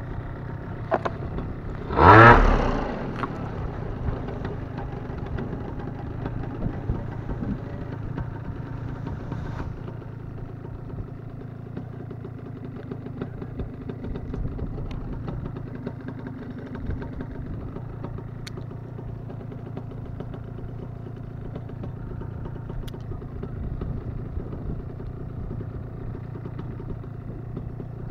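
Paramotor engine idling steadily, a little quieter from about ten seconds in, with one brief loud burst about two seconds in.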